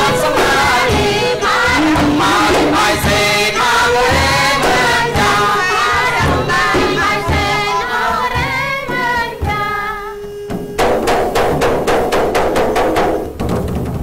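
Khmer yike theatre music: voices singing over drum beats, then, about eleven seconds in, a fast run of frame drum strokes with a held tone underneath, which stops shortly before the end.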